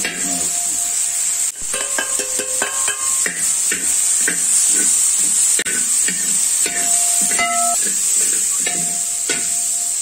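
Onions, tomatoes and curry leaves sizzling in oil in a large aluminium pot, with a metal spatula stirring and scraping the pot in repeated strokes about twice a second. A few brief ringing tones come from the metal on metal.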